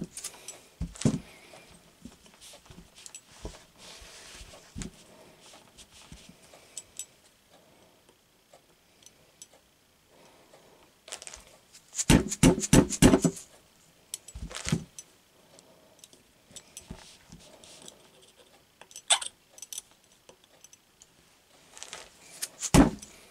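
A hammer tapping a pin punch to drive the ejector pin out of a New England Firearms Handi Rifle's receiver: a quick run of about ten sharp taps around the middle, with a few single taps before and after.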